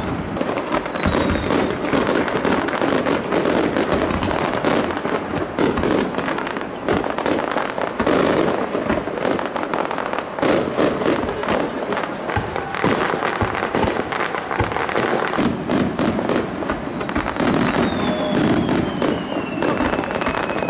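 Fireworks: a dense, unbroken crackle of many sharp bangs and pops from shells and set pieces going off together. A high whistle falls in pitch near the start, and another in the last few seconds.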